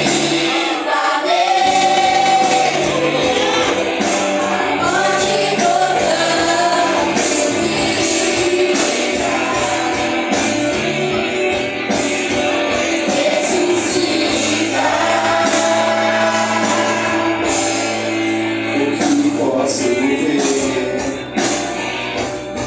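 Gospel worship song: several voices singing a melody over a band, with sharp percussion strokes throughout.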